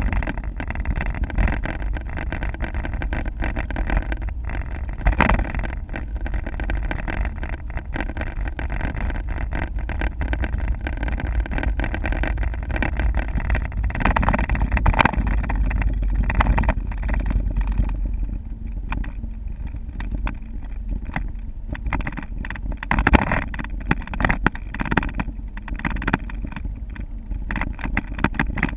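Car driving at highway speed: a steady low rumble of engine and tyre noise, with frequent short knocks and thumps.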